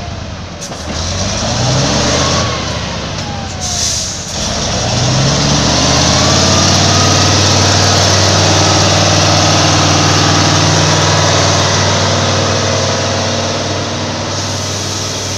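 Truck engine revving up three times in quick succession, then held at steady high revs for several seconds before easing off near the end. A couple of short hisses come in the first few seconds.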